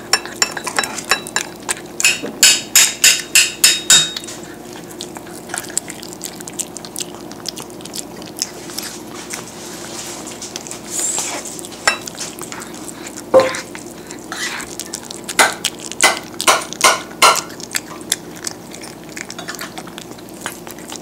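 Sphynx cat eating wet cat food off a plate close to the microphone, chewing and licking with wet smacking. Twice it runs into a quick series of smacks, about four a second, and a single sharp click comes about halfway through.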